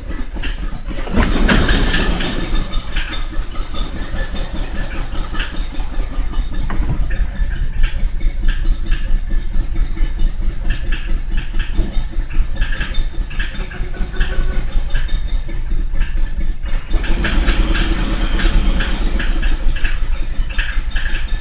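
Swapped-in Ford 3.0 L V6 from a 2006 Fusion idling roughly and unevenly at around 1000 rpm on one of its first starts, not running well. The owner puts the rough running down to old, bad gas and to the engine computer still relearning after the swap.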